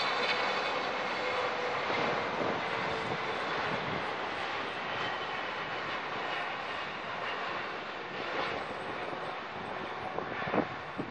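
Boeing 777's twin jet engines on final approach at low power: a steady roar with a high fan whine, and a lower tone that slowly falls in pitch as the airliner passes. A few short thumps near the end.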